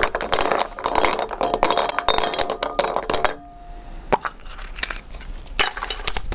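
Plastic draw balls clicking together as a hand rummages in a glass bowl, then a small plastic ball being twisted open and a folded paper slip crinkling as it is unfolded. The clicking is dense in the first half; the second half is quieter, with scattered clicks and paper rustle.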